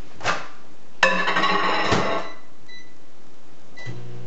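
Microwave oven being started: a sudden clatter about a second in, two short keypad beeps, then the oven's steady low running hum starts near the end.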